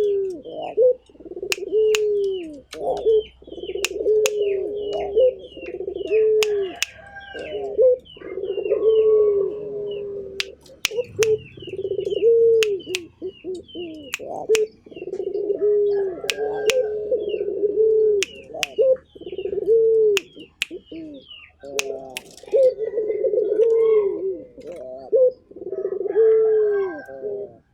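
Puter (Barbary dove) cooing over and over, one falling coo phrase after another about once a second with brief breaks: the busy, non-stop calling that keepers call 'gacor'. Faint high chirps and scattered sharp clicks sound alongside.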